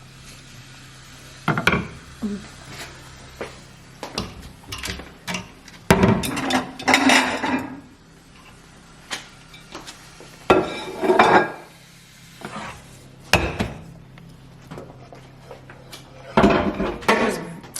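Spoon scraping and knocking against a cooking pot in irregular bursts, with a few sharp knocks, over a steady low hum.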